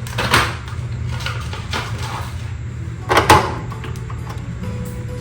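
Three or four short knocks and clatters from handling the tipped-over washer's plastic parts, the loudest pair a little after the middle, over a steady low hum.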